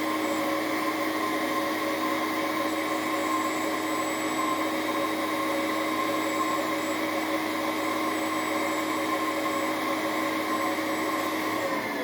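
Electric nail drill with a fine burr running at a steady speed, giving a constant whine. It is smoothing down the edge of a fibreglass repair strip glued over a split nail.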